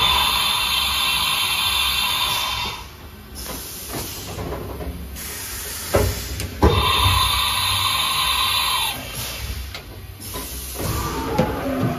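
Haas VF-2SS side-mount tool changer swapping tools: a sharp clack, then a loud hiss of compressed air for about three seconds as the tool is released at the spindle, a second clack and air hiss about six seconds in, and near the end a motor whine sliding up and down in pitch.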